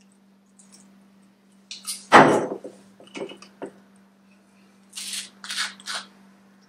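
Kitchen handling noises while bottles are swapped: one loud knock about two seconds in, as of a glass bottle set down on the counter, then a few light clicks, then three short scratchy sounds near the end as a plastic screw cap is twisted off a bottle.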